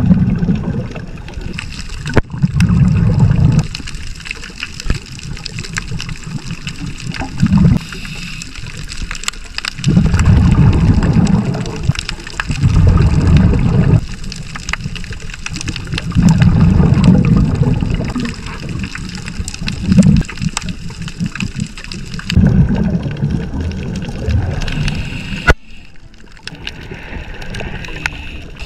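A scuba diver's exhaled bubbles from the regulator, heard from inside an action camera's underwater housing: low bubbling bursts every few seconds over a steady underwater hiss.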